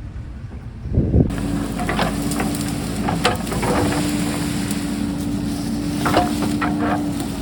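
JCB backhoe's diesel engine running steadily under load, with scattered sharp knocks and scrapes as it works rocky ground. The sound comes in abruptly about a second in.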